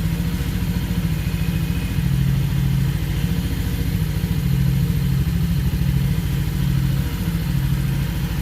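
Single-cylinder motorcycle engine idling steadily, with an even, rapid low pulse.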